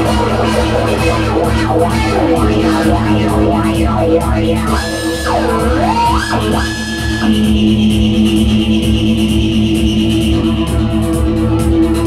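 Live electronic jam of synthesizers, drum machine and electric guitar: sustained synth tones under a steady drum-machine beat with ticking hi-hats. Around the middle, a lead line swoops down in pitch and climbs back up, twice.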